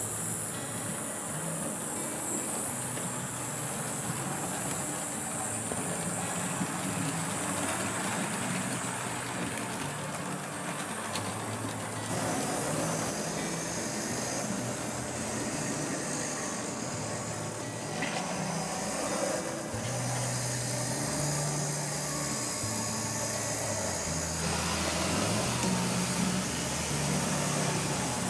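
H0 model trains running on the layout: a steady rumble of small electric motors and wheels on the track, with a constant hiss over it.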